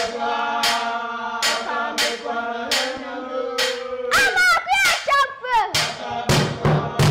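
A boy singing a chant-like song, holding long steady notes and then breaking into shorter rising and falling phrases, with sharp claps at intervals. Hand drums come in near the end.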